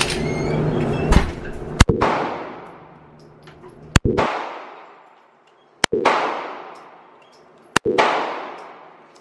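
Four handgun shots, about two seconds apart, each followed by a long echo that dies away in the enclosed indoor range.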